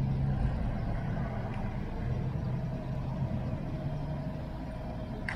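Street traffic: vehicle engines running in a steady low rumble, with a faint thin steady tone above it.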